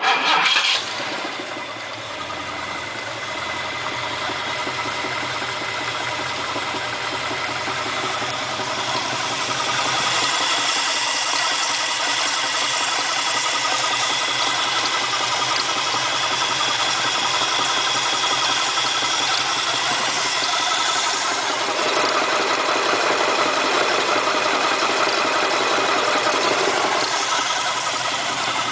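Ford 351 Windsor pushrod V8 idling just after starting, with a fast, even knock running through the idle. The engine has plenty of oil pressure and has lost no power, and the cause of the knock is unknown: it was just installed after sitting unused for seven years.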